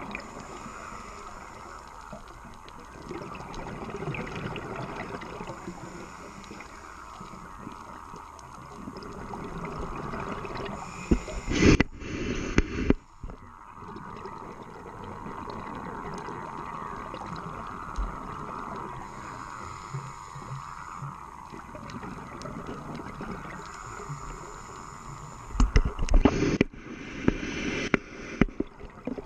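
Underwater ambience picked up through an action camera's waterproof housing: a steady muffled hiss, broken twice by loud bubbling bursts of a second or two, about twelve seconds in and again near the end.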